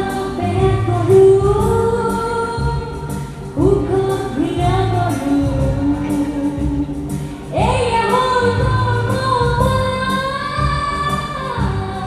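A song with long held sung notes over a steady beat. New vocal phrases swoop up into place about four and eight seconds in.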